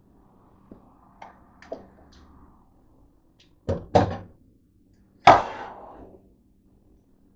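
Kitchenware being handled and set down: a few light taps, then two sharp knocks in quick succession, and a loud clank about two-thirds in that rings out briefly.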